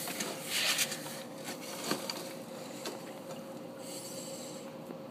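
Hail and rain falling and pattering, with scattered sharp ticks of hailstones striking; loudest in the first second.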